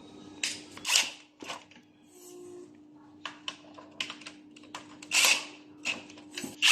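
Irregular clicks, taps and short scraping rustles of tools and parts being handled during repair work, the loudest about a second in and a longer scrape about five seconds in, over a faint steady hum.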